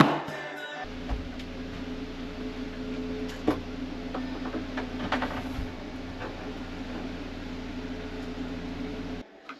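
A few knocks and taps as a thin metal cover panel is worked into an RV refrigerator door frame, over a steady machine hum that stops near the end.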